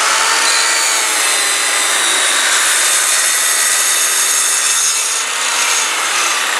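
Corded circular saw running at full speed and cutting through wood, its motor whine dipping slightly under load. A small vacuum hooked to the saw's rear dust port runs along with it.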